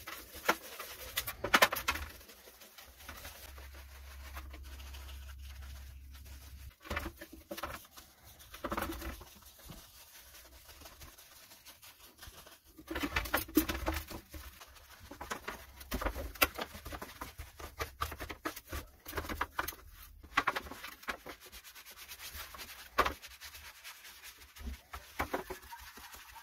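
A bristle brush scrubbing the soapy, grimy housing parts of an AL-KO KB 35/35 chainsaw in a tray: irregular bursts of wet scratching strokes with short pauses between them.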